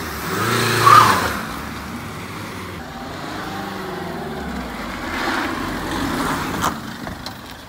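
Renault Mégane coupé engine revving up as the car pulls away, loudest about a second in, then running steadily as it drives around and comes back, growing louder again near the end, with one short knock just before it stops.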